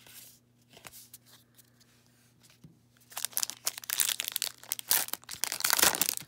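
A 2020 Topps Heritage baseball card pack's crimped wrapper being torn open and pulled apart by hand, a loud crackling tear starting about three seconds in. Before it there are only a few faint clicks of cards being handled.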